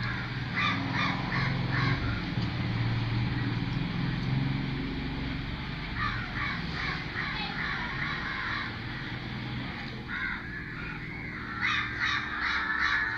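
A crow cawing in short runs of harsh calls, a few a second, in three bouts: about half a second in, around six seconds in, and again from about ten seconds on. A steady low hum runs underneath.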